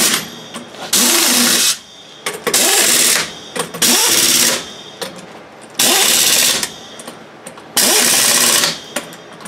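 Impact wrench running on the lug nuts of a pickup's rear wheel, in five short bursts of just under a second each, running the nuts onto the wheel studs.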